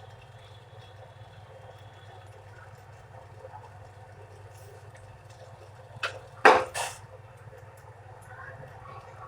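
Saucepan of tea simmering on a low gas flame with a steady low hum, and three sharp metallic clicks of kitchenware about six to seven seconds in, the middle one the loudest.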